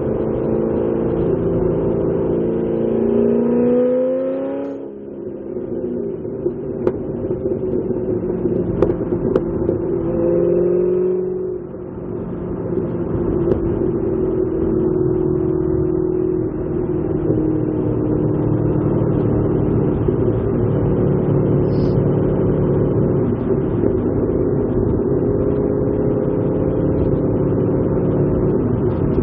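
Chevrolet Corvette Z06 V8 running through an AWE axle-back exhaust while driving. The engine note rises twice under acceleration and drops sharply about five and twelve seconds in, then holds a steady cruising drone.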